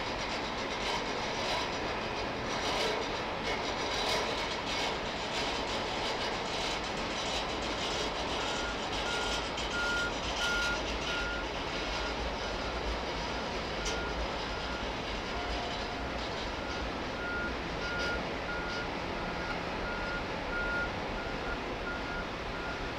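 Norfolk Southern freight train's cars rolling past with a steady rumble and frequent wheel clicks, the clicks thinning out after the first half. From about a third of the way in, a vehicle's reversing alarm beeps steadily, one to two beeps a second.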